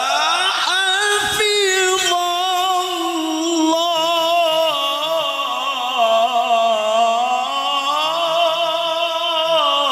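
Man's voice reciting the Qur'an in melodic tilawah style through a microphone, holding one long ornamented phrase: the pitch climbs near the start, then wavers up and down with vibrato before the phrase ends just before the close.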